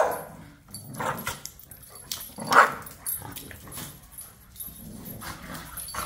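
Dogs play-fighting, with three short bursts of barking: about a second in, the loudest about two and a half seconds in, and a weaker one near the end.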